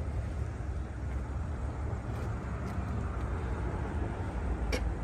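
Steady low background rumble. Near the end come a few sharp metallic clicks as a battery terminal clamp is worked onto a new car battery's post.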